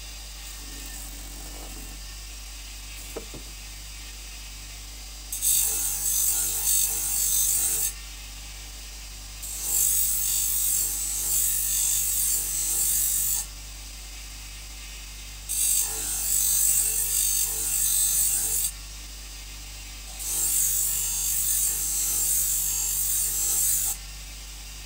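A bar of buffing compound pressed against the spinning felt wheel of a bench grinder, rasping in four scrapes of three to four seconds each with short pauses between, over a steady low hum. The felt is being loaded with compound so that it will strip the burr from a knife edge.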